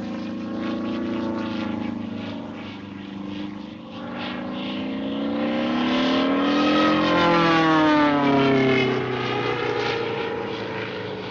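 Cartoon sound effect: a continuous engine-like drone that rises in pitch and grows louder to a peak about seven seconds in, then slides back down, like a small propeller plane passing.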